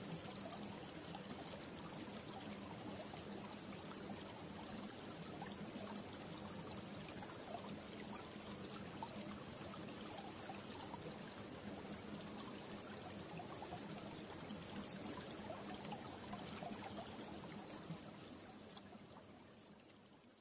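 Steady trickling, flowing water of a stream, faint and even, fading out over the last two seconds or so.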